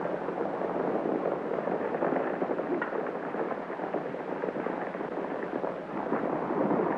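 Sound of a polo match in progress, galloping horses and a crowd, as a dense, steady crackling roar that swells louder near the end.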